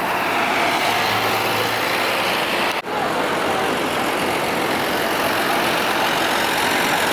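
Bus engines running and idling in a crowded parking area: a steady, loud mechanical din. It cuts out for an instant about three seconds in.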